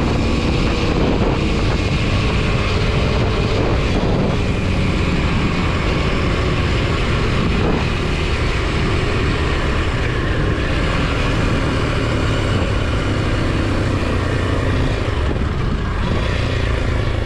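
Single-cylinder four-stroke engine of a Kawasaki KLX 230 SM motorcycle running under way, its note rising and falling a little with the throttle.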